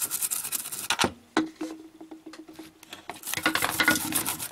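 Thinner-soaked cotton wad scrubbed back and forth over the solder side of a TV circuit board, wiping off soldering residue. The scratchy rubbing comes in two spells, about the first second and again over the last second and a half.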